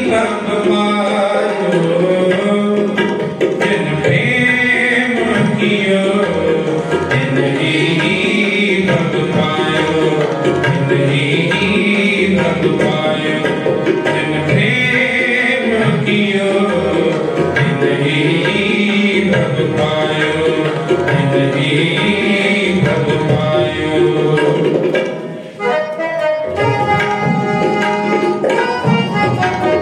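Two harmoniums playing a kirtan melody over a tabla accompaniment, a devotional instrumental interlude between sung lines; the playing dips briefly about 25 seconds in and then carries on.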